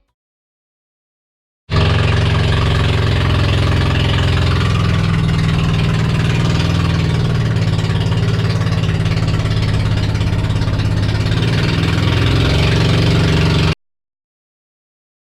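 A boat engine running loud and steady at a constant speed. It cuts in suddenly about two seconds in and cuts off abruptly shortly before the end.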